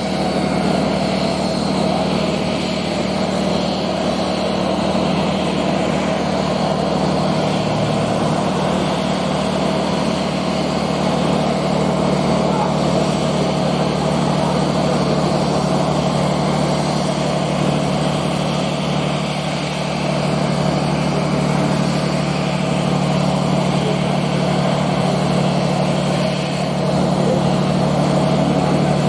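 Boeing 737 twin jet engines at idle thrust as the airliner taxis: a steady hum with a faint, thin whine above it.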